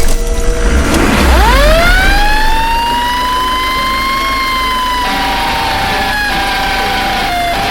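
A fire truck siren winds up sharply about a second in, then holds a steady wail that wavers slightly in pitch. A low rumble sits under the start.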